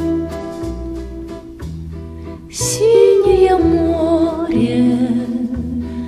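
Acoustic guitar plucking a slow accompaniment. About two and a half seconds in, a woman's voice enters singing long held notes that glide and waver with vibrato over it.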